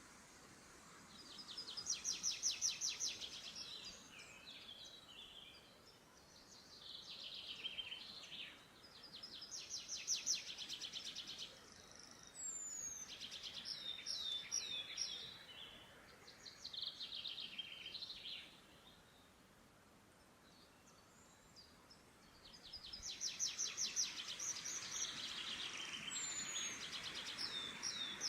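Forest songbirds singing: a string of short, high trilled song phrases of rapid notes, each a second or few long and a few seconds apart, with a lull about two-thirds through.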